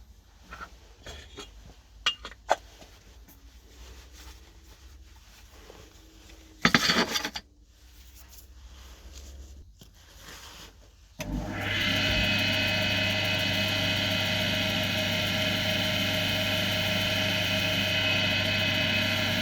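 Axminster AC240WL wood lathe switched on about eleven seconds in, spinning up within a second and then running at a steady speed with a constant hum. Before it starts there are a few small clicks and a brief rubbing noise about seven seconds in.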